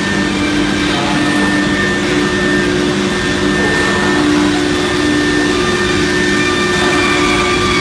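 6 kW HSD spindle of a CNC router routing a particleboard sheet: a loud, steady machine whine with several held tones over a constant hiss.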